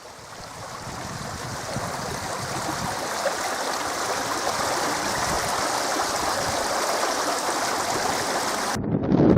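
A steady rushing noise fades in over the first couple of seconds. Near the end it cuts abruptly to wind gusting and buffeting the microphone.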